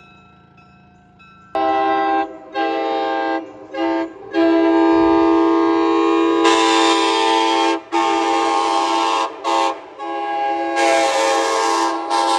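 Nathan K5LA five-chime air horn from Amtrak F40PH locomotive #370, sounding a loud chord in a string of short and long blasts. The longest blast lasts about three and a half seconds, near the middle.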